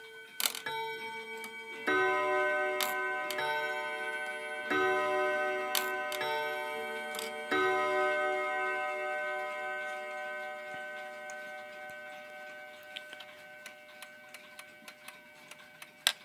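Bim-bam strike of a Hermle 151-030 regulator clock movement: its hammers hit two tuned rods in turn, about once a second over the first eight seconds, each note ringing on and overlapping the next. The ringing then slowly fades, leaving the movement's ticking audible near the end.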